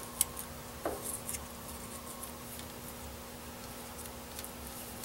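Faint handling noise as a paper strip is wrapped around a small plastic bubble level and worked into the metal jaws of a lathe chuck: light rustling and a few small clicks and taps, the clearest two in the first second. A steady low hum runs underneath.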